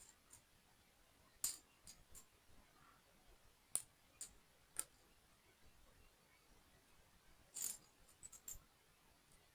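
Small plastic building-block pieces being handled and snapped together: scattered light clicks and taps, a few sharper ones, with a quick run of clicks near the end.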